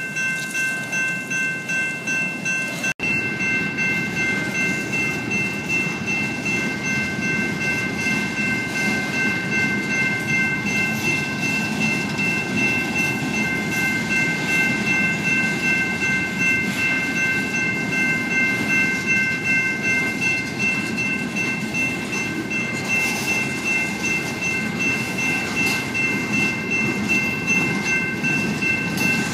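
Railroad crossing's General Signals electronic bells ringing in an even, repeating pulse while a freight train's cars roll through the crossing with a steady rumble. There is a brief drop-out in the sound about three seconds in.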